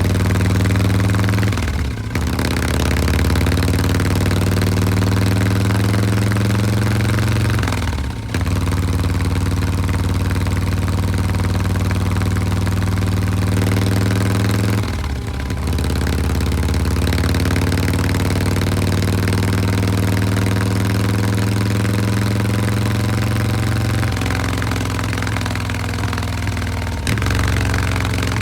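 Harley-Davidson Breakout 114's Milwaukee-Eight V-twin idling through an S&S Grand National exhaust, with an S&S 475 cam fitted. The steady idle note sags and drops out briefly four times.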